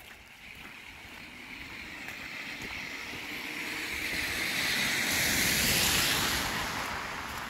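A vehicle passing on a slushy street: a hiss of tyres that swells slowly to its loudest about six seconds in, then fades away.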